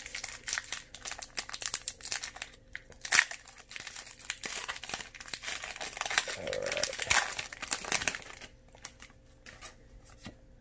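Foil wrapper of a Pokémon trading card booster pack crinkling and tearing as it is handled and ripped open, a dense rapid crackle that dies down about eight seconds in.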